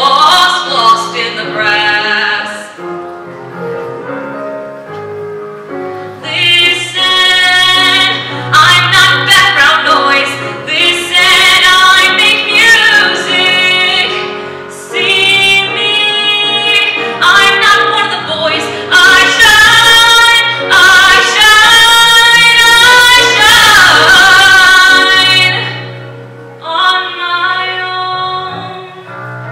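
Female solo voice singing a musical-theatre song over an accompaniment, starting softly, then belting long, loud held notes with vibrato through most of the passage before easing off near the end.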